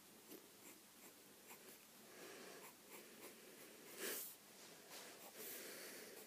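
Near silence, with faint soft sounds of someone drawing and breathing close to the microphone; a brief, slightly louder rustle about four seconds in.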